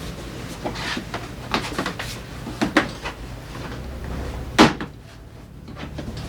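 Tools and parts being handled during scooter engine repair work: a scatter of sharp knocks and clicks, with one louder knock about four and a half seconds in.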